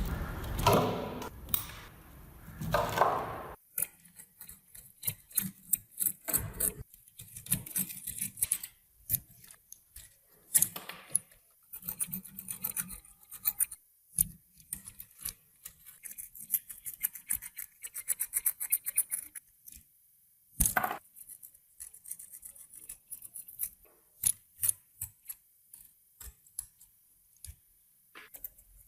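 Metal parts of a rusty manual meat grinder being handled and worked on by hand: irregular clicks, light knocks and rubbing scrapes, with a sharp knock about two-thirds of the way through.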